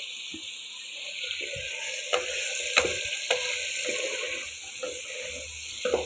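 Drumstick pieces and tomatoes sizzling in oil in a pressure cooker pan, stirred with a ladle that scrapes and clicks against the metal side a few times.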